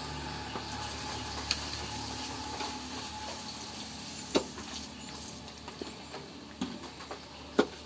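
A cow being hand-milked: thin streams of milk squirting into a small bowl, a soft hissing patter, with a few sharp knocks, the loudest near the end.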